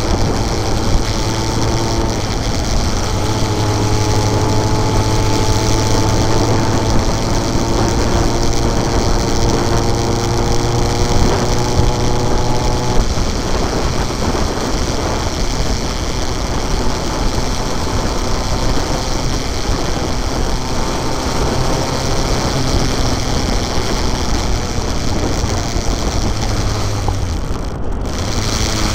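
Motorcycle engine running at a steady cruising speed, with road and wind noise over the microphone. About halfway through, the engine note changes and wind noise takes over.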